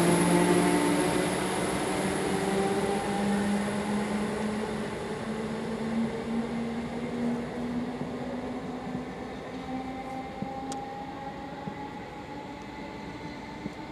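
Electric multiple-unit passenger train pulling away: its traction motors whine in several tones that rise slowly in pitch, fading as the train draws off into the distance.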